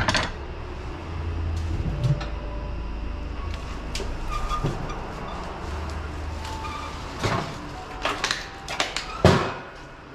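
Scattered clunks and knocks of a household snowblower being handled: its recoil starter is fitted back on, then the machine is lowered back upright onto its tracks, with a cluster of louder knocks and one heavy thump near the end. A steady low hum runs underneath.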